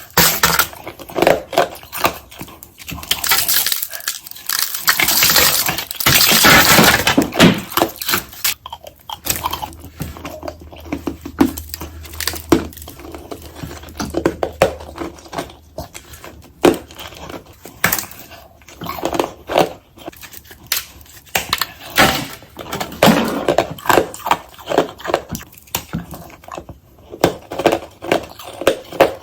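Ice being bitten and crunched close to the microphone, sped up: a rapid string of hard, crackling crunches, densest and loudest a few seconds in, then sparser bites.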